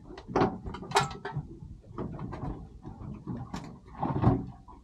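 A series of irregular knocks and clunks, the loudest about a second in and again near the end, from gear being handled on a small boat.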